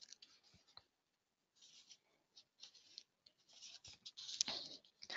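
Near silence broken by faint scattered clicks and scratchy rustling, which grows a little louder in the last second and a half, with one sharper click.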